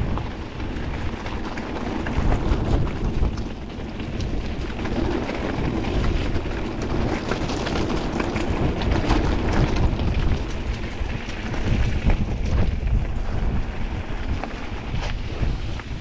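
Wind buffeting an action camera's microphone while an e-mountain bike rides a rough trail: a continuous low rumble with dense clicks and rattles from the tyres and bike over stones.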